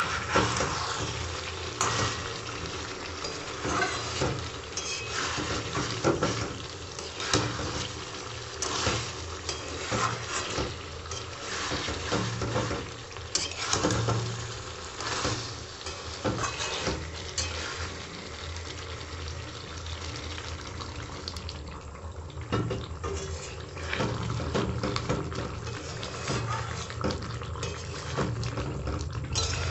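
A steel spatula stirring and turning chicken curry in a metal pan, with repeated scrapes and knocks against the pan. The thick gravy sizzles and bubbles underneath.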